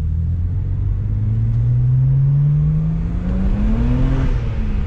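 BMW N54 twin-turbo inline-six accelerating at part throttle, heard from inside the cabin: the engine note climbs steadily for about four seconds, then drops as it shifts up near the end.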